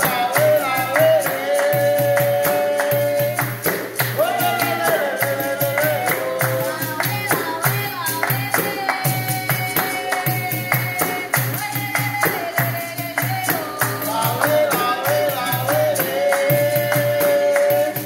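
A capoeira song sung over a steady beat of handclaps and the jingles of a pandeiro.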